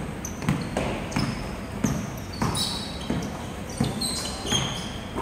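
A basketball dribbled on a wooden court, bouncing steadily about three times every two seconds, each bounce echoing in a large hall.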